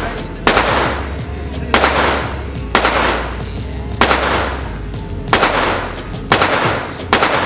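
Seven single gunshots at a steady pace of about one a second, each followed by a long echoing tail.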